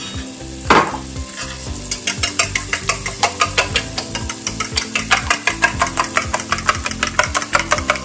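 Fork whisking eggs and milk in a small stainless steel bowl: quick, even clinks of metal on metal, about five a second, starting about two seconds in after a single knock. Butter sizzles in the hot pan underneath.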